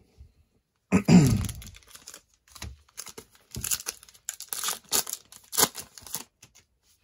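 Plastic cello wrapper of a trading-card pack being torn open and crinkled: a run of crackly tearing and crinkling over the last few seconds, after a short louder sound about a second in.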